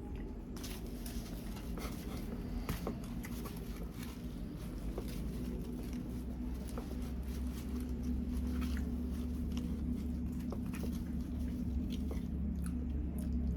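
Close-mic chewing and mouth sounds from eating khao tom mat, sticky rice steamed in banana leaf: scattered small wet clicks and smacks over a steady low hum.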